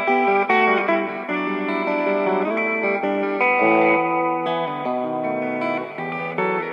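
Electric guitar played through a Marshall MS-4 Micro Stack mini amplifier: a melodic run of sustained notes and chords, the pitch changing about every half second.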